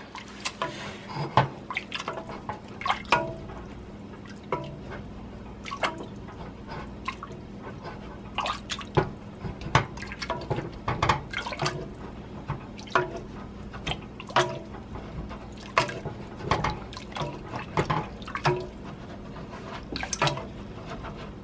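A plastic potato masher pushing cooked potato down into a pot of hot, milky soup base: irregular wet squelches and splats, with sharp clicks where it meets the pot, about one or two strokes a second. A steady low hum runs underneath.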